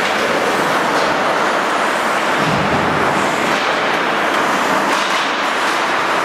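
Steady, loud ambient noise of an indoor ice rink during a hockey game: a constant, even wash of sound with no clear single event.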